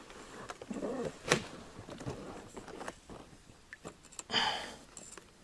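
Handling noises of a fishing handline being pulled in by hand over the side of an inflatable boat: scattered faint clicks and knocks, one sharper click about a second in, and a brief rushing scrape a little after four seconds.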